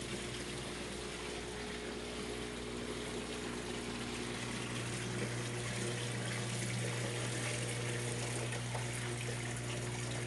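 Water splashing and trickling steadily into an aquaponic fish tank from its return pipe, over a steady low hum.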